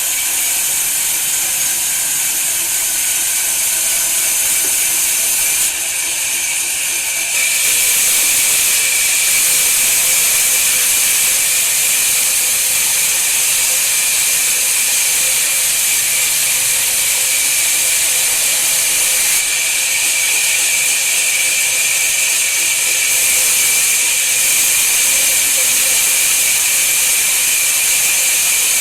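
Steady, loud hiss of a woodworking machine running, with a thin high whine over it. It gets louder about seven seconds in and then holds steady.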